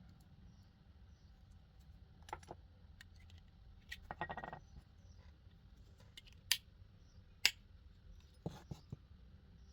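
Hand-work noises from tools and small parts: scattered sharp clicks, a short rattling scrape about four seconds in, and two louder single clicks later on.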